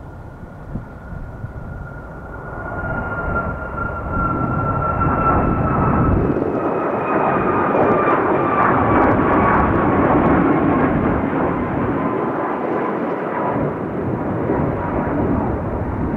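United Boeing 737 MAX's twin CFM LEAP-1B turbofans at takeoff thrust as it climbs out. The jet noise builds over the first few seconds and then stays loud, with a high fan whine that slowly falls in pitch.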